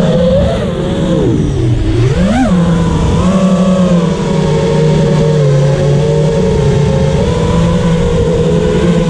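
A 5-inch FPV quadcopter's T-Motor 2306 2400KV motors and three-blade props buzzing in one steady pitch, heard from the onboard camera. About two seconds in, the pitch dips and then shoots up briefly before settling back to a steady buzz.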